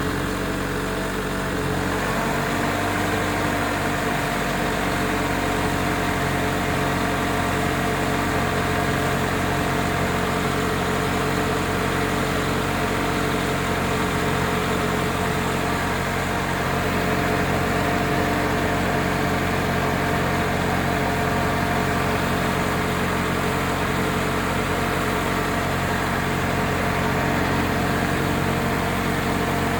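Chevrolet Corsa Wind 1.6 four-cylinder petrol engine idling steadily at operating temperature, freshly repaired and holding oil pressure at hot idle.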